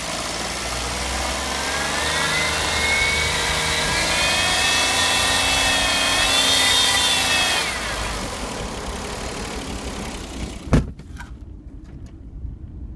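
Suzuki Every Wagon DA62W accelerating, with a whine that rises in pitch and holds, then cuts off suddenly. This is the abnormal noise that appears only under acceleration once the turbo comes on, with the overhauled engine and turbo warm; the cause is unknown. One sharp knock sounds near the end.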